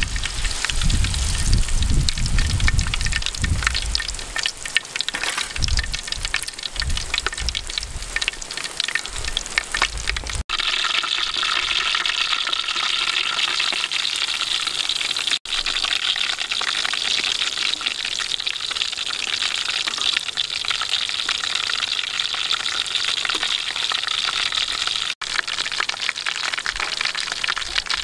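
Shrimp fritters in batter deep-frying in hot oil. For the first ten seconds or so the oil crackles sharply with low knocks as the pieces are handled. It then settles into an even, steady sizzle.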